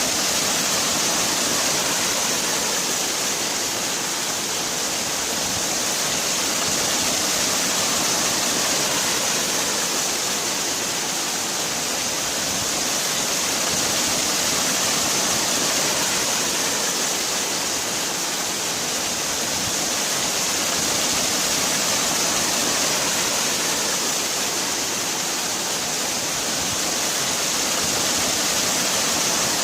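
Waterfall: a steady rush of falling water, with a hiss in the high end and a slow, gentle swell and ebb in loudness.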